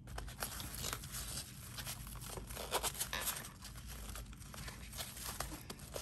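Rustling and scratching of a fabric pencil case's mesh pocket and a bundle of wired earphones as the earphones are pushed into the pocket, with many small clicks; loudest a little before the middle.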